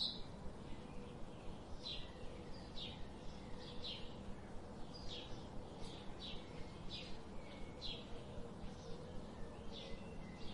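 Birds chirping: short, high, falling notes repeated about once a second over a steady background hiss.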